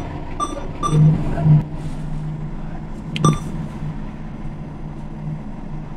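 ATM keypad beeping as keys are pressed for the PIN: two short beeps in the first second and another, with a sharp click, a little after three seconds. A steady low hum runs underneath.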